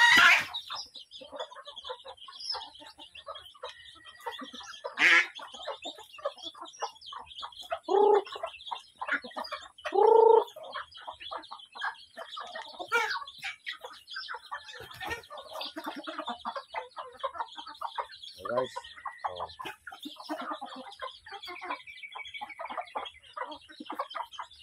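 A flock of chickens clucking and calling as they feed on scattered grain. Louder calls come about five, eight and ten seconds in.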